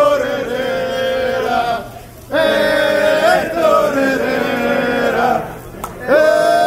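Soccer supporters chanting a song in unison. Three long held phrases are separated by short breaks, the last one starting near the end.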